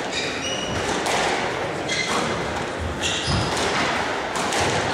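Squash rally: the ball cracks off the rackets and walls about once a second, with sneakers squeaking on the wooden court floor, in an echoing hall.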